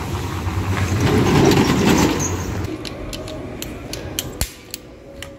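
A rumbling noise swells for the first two seconds or so and then fades. It is followed by a run of sharp clicks and rattles as a shopping cart's coin lock and chain are handled.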